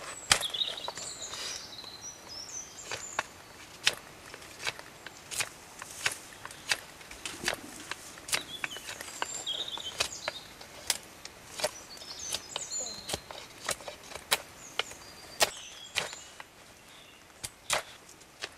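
A fixed-blade knife shaving a split wooden branch, with sharp, irregular cutting strokes about one to two a second as the halves are cleaned and evened into tongs.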